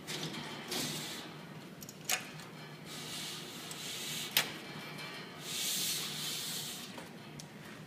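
A control board sliding out of its slot in a Cisco 7000-series switch chassis: metal scraping along the card guides in three stretches, with two sharp clicks, one about two seconds in and one past four seconds.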